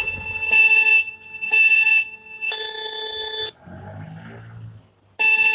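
Electronic alarm sound effect: a steady multi-tone beep sounding on and off, in beeps of about half a second to a second. The fourth beep is longer and higher-pitched, and after a pause of about a second and a half the beep starts again near the end.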